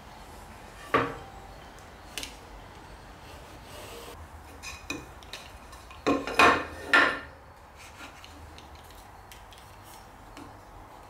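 Short hardwood strips being handled and set down on the aluminium top of a router table, making a few sharp wooden knocks and clatters. The loudest comes about a second in, and a quick run of three follows around six to seven seconds in.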